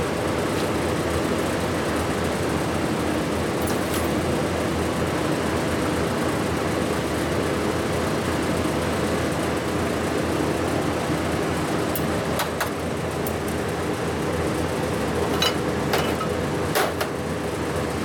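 TIG welding machine running with a steady electrical hum and fan whir, with a few light clicks.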